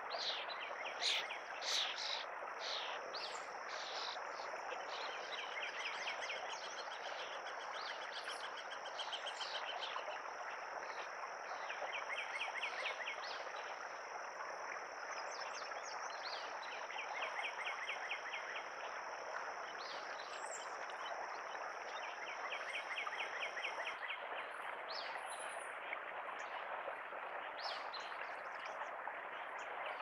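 Natural outdoor ambience of birds and insects over a steady background hiss. A continuous high insect drone cuts off suddenly near the end. Small birds give repeated rapid trills every few seconds, with scattered short chirps.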